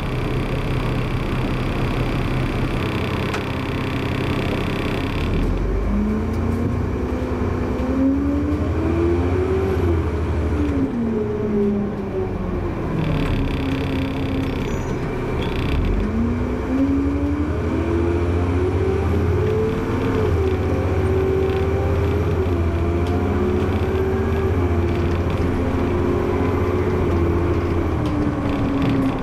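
A bus's engine and drive heard from the driver's cab: steady at first, then a whine that rises in pitch as the bus pulls away about six seconds in. It drops back, rises again around the middle, holds fairly steady, and eases off near the end.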